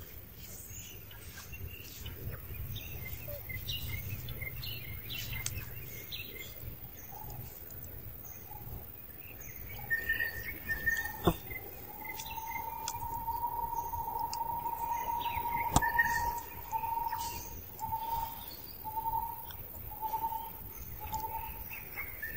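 Wild birds chirping in forest, with scattered high short chirps. About halfway through, one bird holds a steady whistled note for several seconds, then gives a string of short notes about one a second. Two sharp clicks stand out, one shortly before the long note and one near its end.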